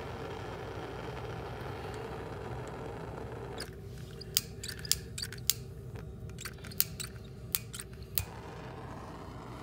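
Handheld gas torch flame hissing steadily, then cutting off about three and a half seconds in. A run of sharp, irregular clicks follows.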